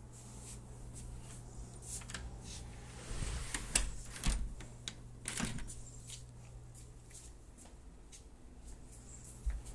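A door's lever handle being worked, its latch giving a few sharp clicks and knocks from about three to five and a half seconds in, over a steady low hum.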